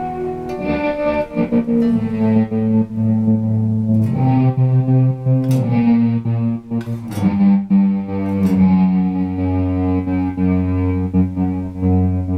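Electric guitar played through a Montreal Assembly Rand() random-tremolo pedal: plucked notes and sustained chords whose volume wavers unevenly as the pedal modulates them at random.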